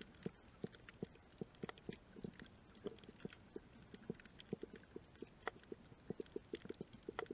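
Muffled underwater reef sound recorded with the camera submerged: a dense run of irregular clicks and crackles, several a second, over a low dull hum.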